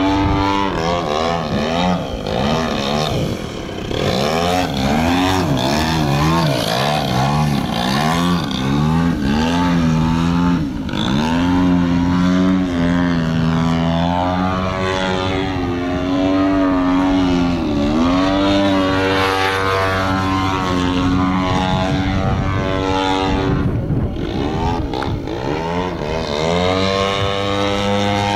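Engine and propeller of a 35% scale Aeroworks Extra 260 radio-control aerobatic plane in flight. The pitch sweeps up and down over and over as it throttles and manoeuvres, with long stretches held at a steady note in between.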